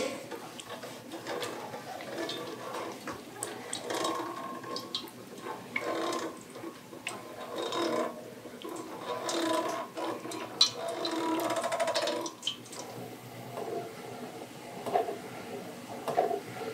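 Hand-cranked Victorio food strainer being turned, its auger forcing cooked green tomato pulp through the screen: a wet, mechanical churning that swells with each turn of the crank, about every two seconds, easing off near the end.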